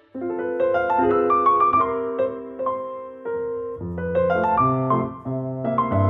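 Background music: a piano playing a slow melody, with lower bass notes coming in about four seconds in.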